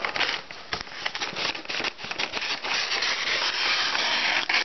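Brown kraft paper crinkling and rustling as it is cut and handled, with many small crackles, louder in the second half.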